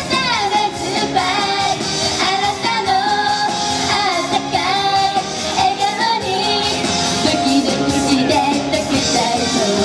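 Japanese idol pop song: young girls singing the melody over a full instrumental accompaniment.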